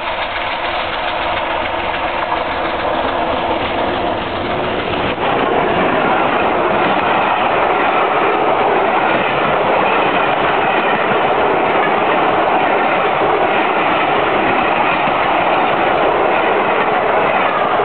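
LNER A4 three-cylinder Pacific steam locomotive 60009 and its train of coaches passing close at speed: a loud rush of wheel and rail noise. It jumps in loudness about five seconds in as the engine reaches the lineside, then holds steady as the coaches run by.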